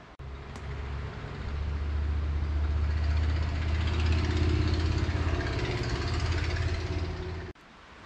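A motor vehicle's engine running at a steady low pitch with a hiss above it. It grows louder over the first few seconds and cuts off suddenly near the end.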